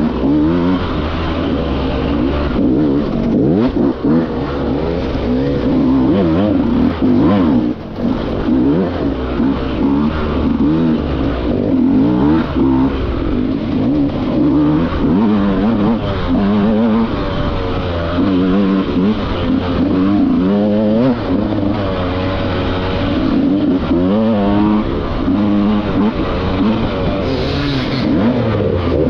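Dirt bike engine revving up and down over and over as the throttle is worked riding along the trail, its pitch rising and falling every second or two.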